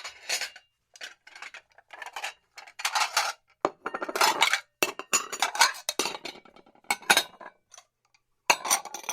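Dishes and cutlery being washed, clinking and clattering in irregular bursts of knocks and scrapes, with a short lull near the end.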